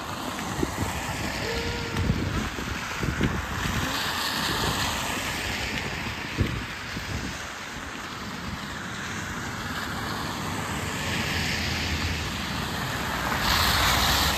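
Cars passing on a wet road, their tyres hissing as each one swells up and fades, the loudest near the end as a car goes by close. Wind rumbles on the microphone throughout.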